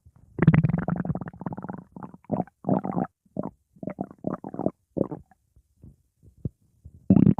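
Stomach growling and gurgling: a long rumble about half a second in, then a string of short, irregular gurgles that thin out, and another loud rumble starting just before the end.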